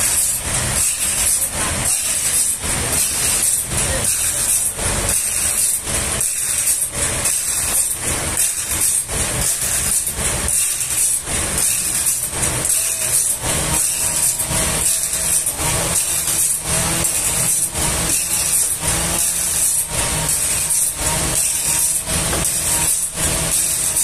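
Forklift engine running steadily as it lifts and sets down a large log. Background music with a steady, shaker-like beat plays over it.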